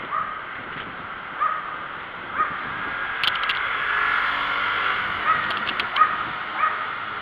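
Riding noise from a bicycle on a paved street, with a short rising squeak that recurs every second or so, in a run early on and another near the end, and a few sharp clicks.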